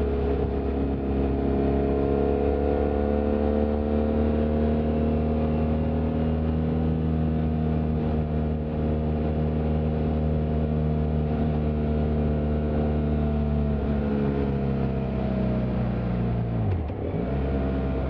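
BMW F800GT's 798 cc parallel-twin engine and exhaust, heard from the rider's seat while riding at a steady pace. Near the end the engine note falls, dips sharply for a moment and picks up again.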